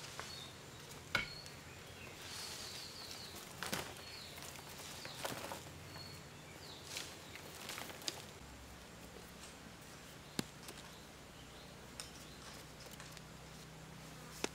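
Faint rustling, footsteps and scattered sharp snaps and clicks of long dry vines being carried, dropped and handled on loose soil. A few faint high chirps sound about two seconds in.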